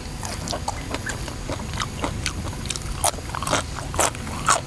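Close-miked eating: wet chewing and lip smacks from a person eating. The smacks come sharper and more often from about three seconds in.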